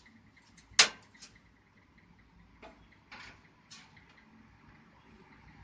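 A few sharp clicks and light knocks of hard computer parts being handled, the loudest a single sharp click about a second in.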